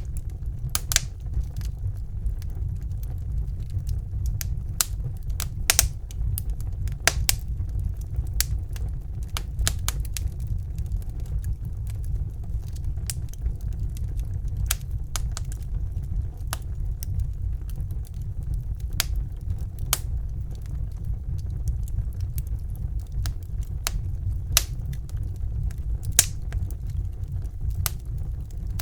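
Wood fire in a fireplace crackling: sharp, irregular pops and snaps over a steady low rumble, with a few louder pops now and then.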